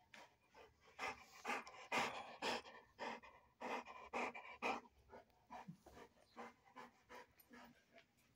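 A large mastiff-type dog panting close by, in quick breaths about two a second, loudest in the first half and fading later.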